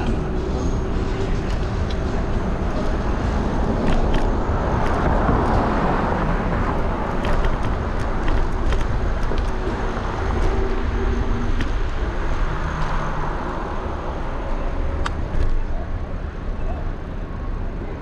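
Wind buffeting a handlebar-mounted action camera's microphone on a moving electric scooter, with a steady low rumble of wind and road noise and city traffic under it. The noise swells twice, about five seconds in and again near thirteen seconds, and a few light clicks are scattered through it.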